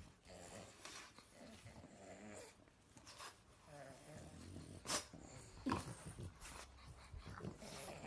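Pug making short, low grumbling growls in bouts as it paws at a person's hand, with two sharp clicks a little past the middle.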